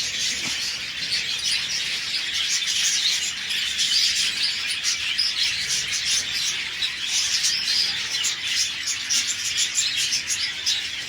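Many small caged birds chirping at once, a steady dense chatter of short overlapping high calls.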